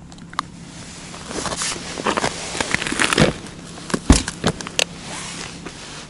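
Rustling of winter clothing and handling noise as an ice angler shifts and moves about, with scattered clicks and knocks. The loudest is a dull thump about four seconds in.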